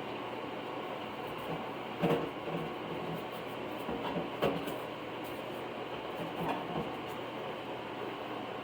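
Steady background hiss with a few light knocks and clatters, the loudest about two seconds in and again about four and a half seconds in.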